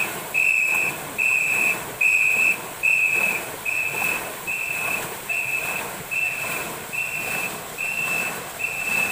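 A pacing whistle blown in short, even blasts, about three every two seconds, calling the stroke rhythm for a crew of paddlers in a long racing boat. Under it runs the continuous rush and splash of many paddles churning the water.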